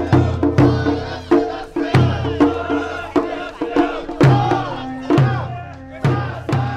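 Japanese festival drums beaten by hand in a steady beat, about two to three strokes a second, with rhythmic shouted calls from the drummers.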